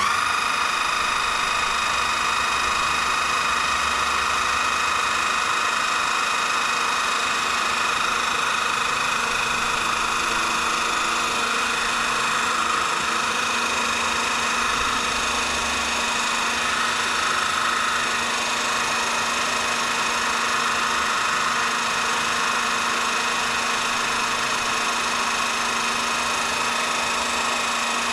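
VEVOR 12V electric hydraulic car floor jack's motor and pump switching on suddenly and running steadily with a constant whine as the jack lifts a vehicle.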